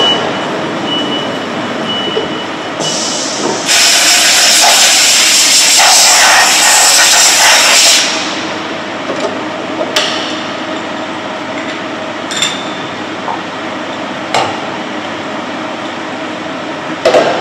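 CNC mill running with a steady high whine that stops about three seconds in, then about four seconds of loud hiss from a compressed-air gun blowing chips and coolant off the freshly pocketed aluminium part. After that, a few sharp metallic clanks as the machine vise is opened with its handle.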